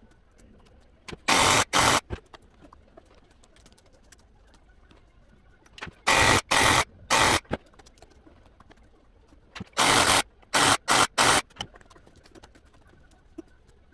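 Wig hair-implanting machine running in short bursts of under a second each: two, then three, then four, with quiet gaps between the groups.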